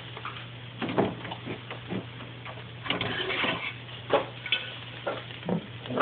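Irregular clicks and knocks of things being handled in a kitchen over a steady low hum, busiest a little past halfway.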